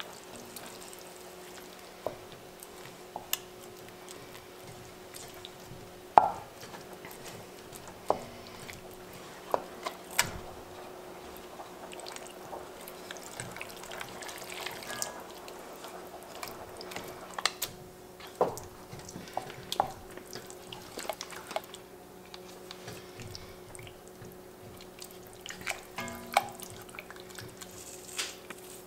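Slotted wooden spatula stirring thick braised beef and sauce in an enameled cast-iron Dutch oven: wet squelching and scraping, with sharp knocks of the wood against the pot every second or two.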